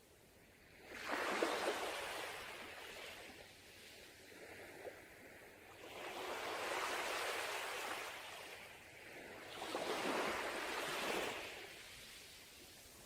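Sea waves breaking on a beach, three in turn: the first comes in suddenly about a second in and hisses away, then two broader swells follow. Between them the surf drops to a soft wash.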